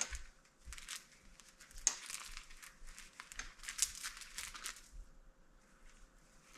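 A new saw chain being handled and worked onto a chainsaw bar: light, irregular rattling and clicking of the metal links, with rustling, quieting near the end.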